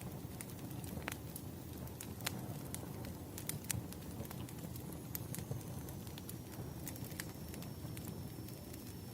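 Wood fire burning: a steady low rumble of flames with irregular sharp crackles and pops from the burning logs. A faint thin high whine that slowly falls in pitch comes in about halfway.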